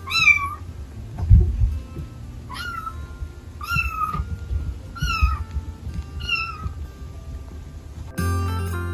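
Young kitten mewing, five short high-pitched calls about a second or so apart, calling for the older cats. Music begins near the end.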